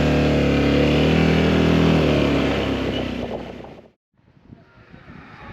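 A vehicle engine running at a steady note, which fades out about three and a half seconds in. An abrupt cut follows, then quieter background sound.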